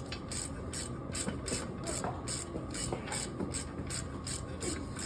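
Socket ratchet clicking steadily, about four clicks a second, as the bolts holding a front wheel hub bearing assembly are backed out.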